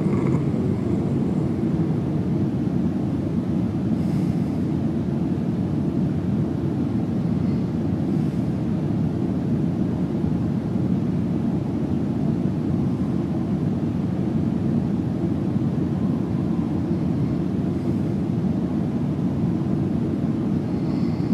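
Soft open-mouth snoring of a sleeping man, faint breaths coming about every four seconds over a steady low droning noise that is the loudest thing throughout.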